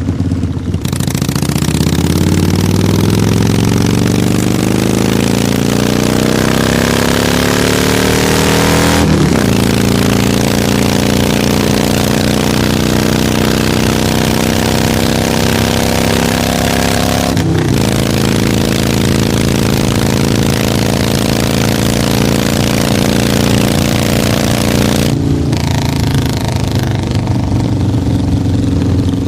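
Harley-Davidson V-twin motorcycle accelerating under way, with wind rush. The engine note climbs steadily for the first several seconds, then holds fairly steady through two brief breaks for gear changes. It drops to a lower, steadier run as the throttle closes near the end.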